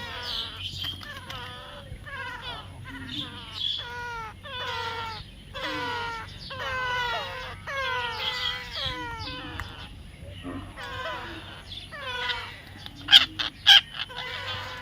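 Baby parrot calling over and over: a steady run of short squawks, each falling in pitch, about two a second. A few loud sharp clicks cut in near the end.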